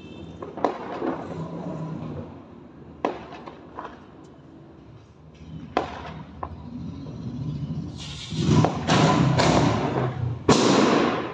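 Firecrackers going off: a few scattered sharp bangs, then a run of loud crackling bursts over the last three seconds.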